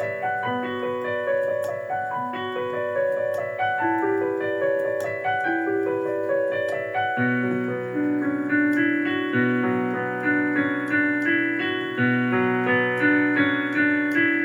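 Electric keyboard playing a melody over held chords in an even pulse of struck notes, with a lower bass part joining about halfway through.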